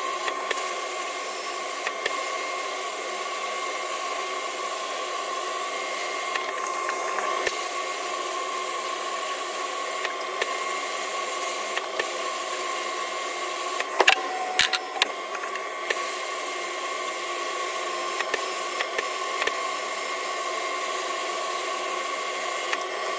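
Sandblast cabinet's blast gun hissing steadily with a thin whine as abrasive grit strips a shotgun's metal parts down to bare metal, with scattered ticks of grit and a few sharper clicks about fourteen seconds in.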